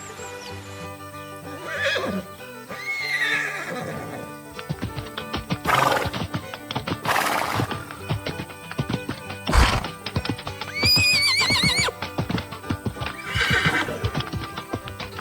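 Cartoon sound effects of a horse whinnying and hooves clip-clopping over cheerful background music, with several sharp noisy bursts in the middle.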